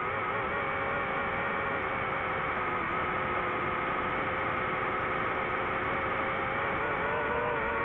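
DJI FPV drone's motors and propellers whining steadily, several pitches at once that waver slightly with throttle, over a steady hiss of rushing air.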